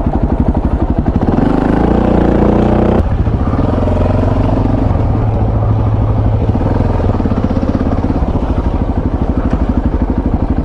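Motorcycle engine running on the road with a low, even pulse. It rises in pitch as it accelerates for about two seconds, drops sharply about three seconds in as it shifts up, then runs on steadily.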